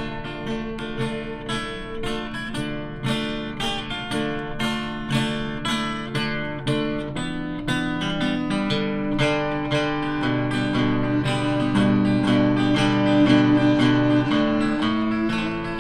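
Instrumental break of a slow folk song: acoustic guitar picking notes, with a long note held underneath through the second half.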